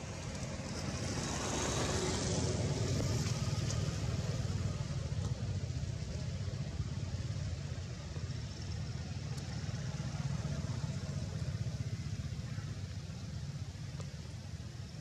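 Steady low rumble of outdoor background noise, swelling with a brief hiss a couple of seconds in; no monkey calls stand out.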